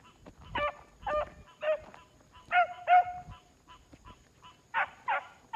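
Four-month-old puppies barking and yelping in short, high-pitched calls, about seven in uneven clusters, the loudest about three seconds in.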